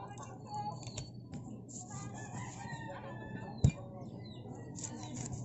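A cleaver chops once through fish onto a wooden stump chopping block, a sharp knock about two-thirds of the way through, with a fainter tap near the start. Birds call in the background throughout.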